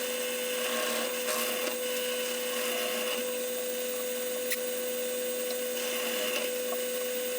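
Electric drill with a 3/8-inch bit boring into a wooden mandolin neck, its motor running at a steady speed with an even hum and the hiss of the bit cutting wood. It stops near the end.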